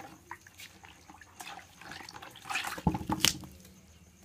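Wet slaps and splashes on a wet concrete floor as a freshly caught eel and catfish are handled, with a heavier wet thump about three seconds in.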